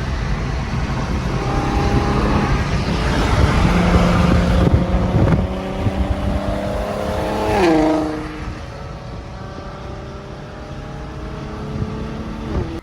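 Infiniti Q50's V6 engine and exhaust, made louder by test pipes that replace the catalytic converters, pulling under acceleration with its pitch climbing for several seconds. About two-thirds of the way through the pitch and loudness drop sharply, and the engine runs on more steadily at lower revs.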